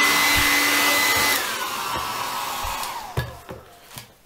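Hair dryer blowing with a steady whine, warming a tablet's screen edge to soften the adhesive, then switched off about a second and a half in, its motor whine falling in pitch as it spins down and fades. A few light knocks follow near the end.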